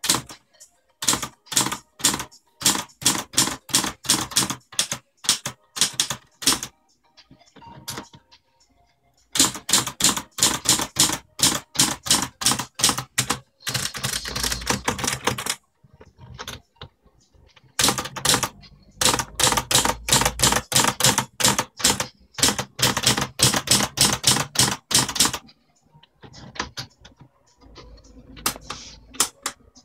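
Princess 300 manual typewriter being typed on: quick runs of sharp key strikes, several a second, in four bursts with short pauses between them, and a denser rattling stretch about halfway through.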